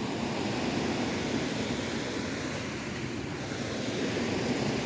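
Steady rushing wash of rain and creek water, even and unbroken.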